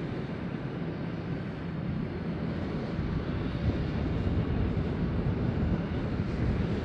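Heavy diesel mining equipment running, a steady low rumble that grows a little louder about two seconds in.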